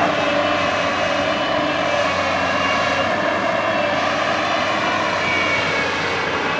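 JCB backhoe loader's diesel engine running steadily under work, with a faint high whine over it.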